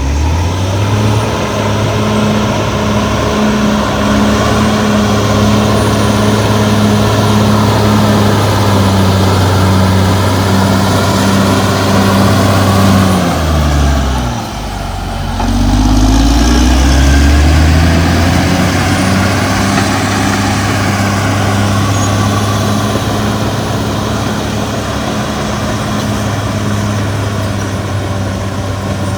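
CAT D6R XL bulldozer's diesel engine running hard. About halfway through, the engine speed drops briefly, then climbs back up.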